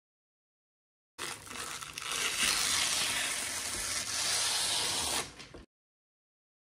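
Clear plastic wrap crinkling as it is pulled off a boxed Shopify counter display. It starts about a second in and lasts about four seconds.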